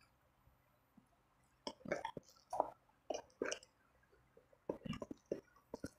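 Close-up chewing of a mouthful of spicy instant noodles: short wet mouth sounds in clusters, starting about a second and a half in, pausing, then again near the end.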